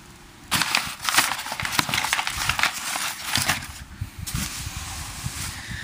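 Rustling, crinkling and light knocking as a cardboard box and plastic-wrapped intake parts are handled, starting about half a second in with a brief pause near four seconds.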